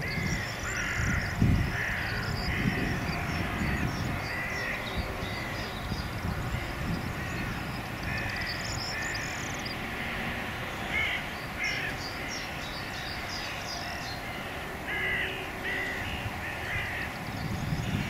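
A flock of birds calling overhead as it leaves its night roost: many short calls overlapping in loose bunches, over a steady low background rumble.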